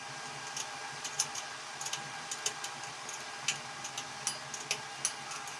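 Small, irregular clicks and taps of hands handling a fan capacitor and its wires, ready to be reconnected.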